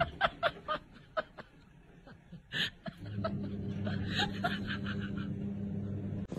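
A person laughing under their breath in short snickers: a quick run of them at the start and another about four seconds in.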